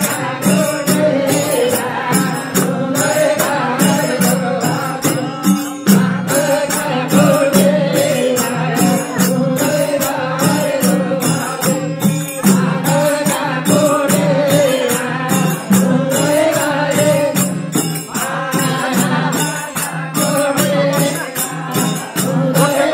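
Nepali devotional bhajan music: group singing over a steady madal hand-drum beat, with bright metallic jingling percussion on the rhythm.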